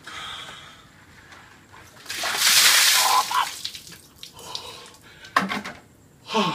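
A bucket of ice water poured over a man's head: a loud splash of about a second, some two seconds in, followed by short vocal outbursts from him.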